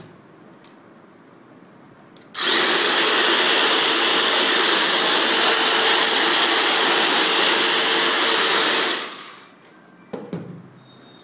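Black & Decker GT110 electric hedge trimmer switched on and running with no load. Its 420 W motor and dual-action blades give a loud, steady buzz for about six seconds, then wind down when released. A short clack of handling follows near the end.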